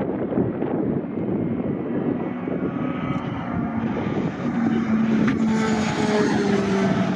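Pack of racing pickup trucks approaching, their engines blending into a loud drone; several engine notes come through clearly from about halfway in and grow stronger as the trucks draw near.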